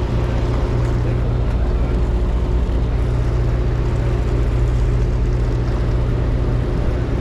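Fishing boat's engine running with a steady low drone, under a constant hiss.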